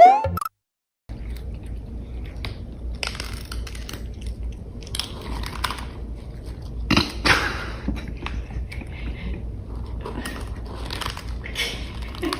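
A pet chewing and crunching something: irregular crisp crunches over a steady low hum.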